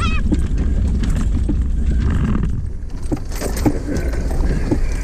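Off-road vehicle crawling slowly over a rutted dirt trail: a steady low engine rumble with frequent knocks and rattles from the body and loose gear as it jolts over the bumps.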